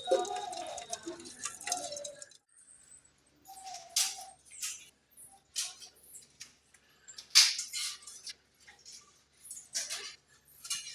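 Live crabs clicking and scraping, shells and claws rubbing and knocking together in uneven, scattered clicks with short pauses between.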